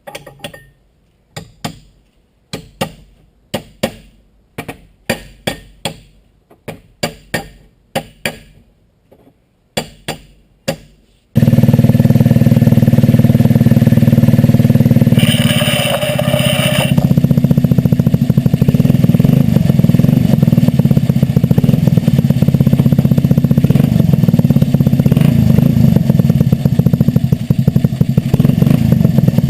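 About a dozen short, sharp strokes of a hand file, roughly one a second, filing a burr off the sprocket's flange. About eleven seconds in, a go-kart's small engine cuts in suddenly, running loud and steady to the end.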